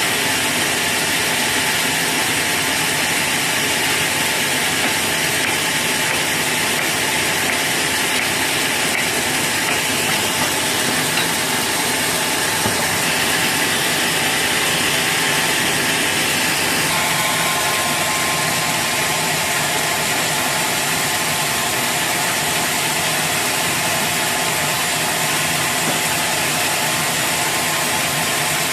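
Sawmill machinery running steadily, a continuous mechanical noise that shifts slightly about 17 seconds in.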